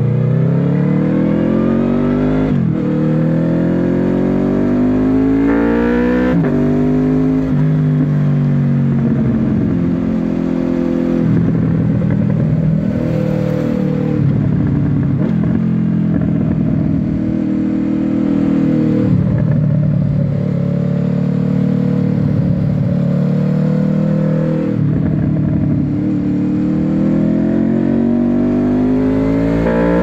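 Honda VFR800F's V4 VTEC engine breathing through an SC Project slip-on exhaust, heard from the rider's seat while riding. It pulls up through the gears with the pitch dropping sharply at each upshift over the first several seconds, holds a steadier note through the middle with small dips as the throttle is eased, and climbs again near the end.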